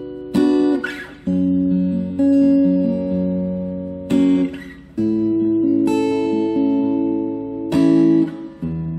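Future FAG006C cutaway acoustic-electric guitar playing ringing chords. A hard strummed chord comes three times, about four seconds apart, with the chord changing after each.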